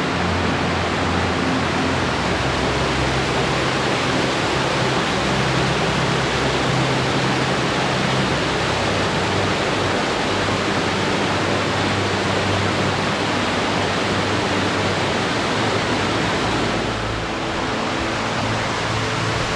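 Steady, loud rushing of flowing water.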